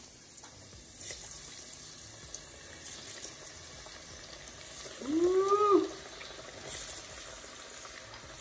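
Battered panfish fillets frying in hot oil in a cast-iron pot: a steady bubbling sizzle with faint crackles. About five seconds in, a short pitched call rises and then falls, louder than the sizzle.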